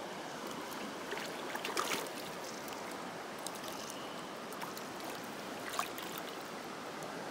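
Shallow stream running steadily over stones. A small hooked yamame (masu trout) splashes at the surface, loudest in a flurry of splashes around two seconds in, with one short splash near the end.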